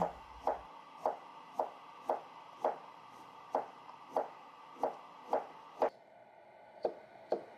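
Chef's knife slicing peeled mountain yam on a plastic cutting board: a short knock of the blade on the board with each cut, about two cuts a second, coming more sparsely near the end.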